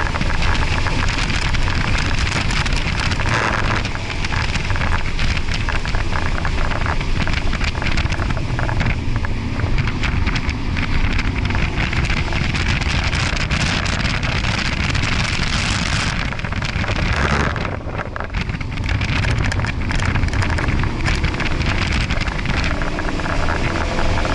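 Ford Focus RS at track pace, heard from inside the cabin: its 2.3-litre turbocharged four-cylinder running hard under a heavy blanket of wind and road noise. The noise eases briefly about three-quarters of the way through, then returns.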